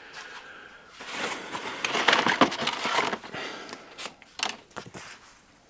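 A thin plastic sheet being handled, crinkling and rustling for a couple of seconds, followed by two light taps.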